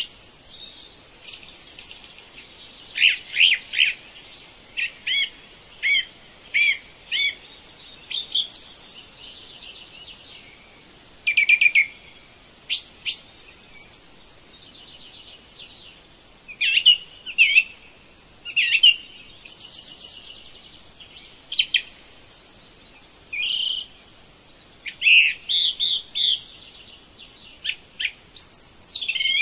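Songbirds singing: a run of short high chirps and quick trills, phrase after phrase with brief pauses between.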